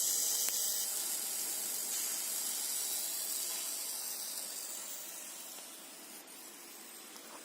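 Steady hiss from a 50 W fiber laser marking machine at work on copper, dying down gradually over the second half.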